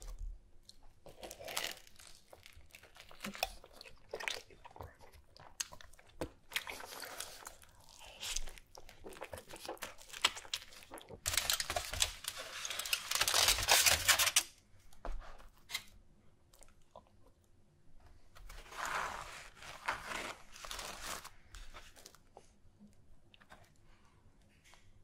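Close-miked mukbang eating sounds: crunching bites and chewing of a cheese-sauce-dipped sub sandwich. Just past the middle comes a loud stretch of a few seconds of aluminium foil crinkling as a foil-wrapped sandwich is unwrapped.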